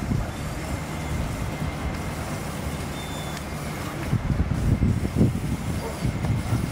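Low rumble of a large engine running, swelling for a moment about four to five seconds in.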